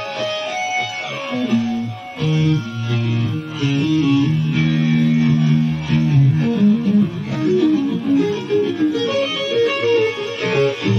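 Electric guitar playing a fast lead lick that mixes quick high runs and bends with palm-muted low notes.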